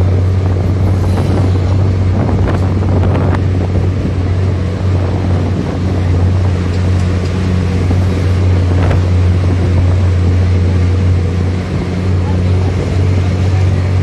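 A vehicle's engine running with a steady low drone while driving, with wind buffeting the microphone.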